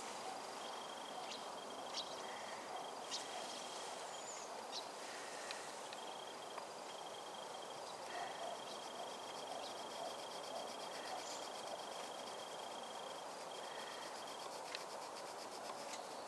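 Outdoor background of insects chirping: a high thin tone that breaks off and resumes, a rapid high trill for a few seconds mid-way, and scattered faint clicks over a steady hiss.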